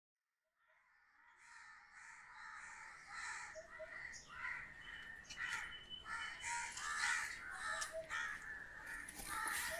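Crows cawing over and over, fading in from silence about a second and a half in, with a brief thin high call midway.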